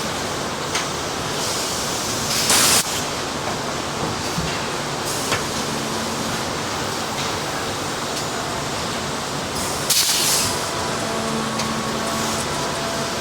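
Hay and straw baling press running in production: a steady loud mechanical noise, with two short loud hisses about two and a half seconds and ten seconds in.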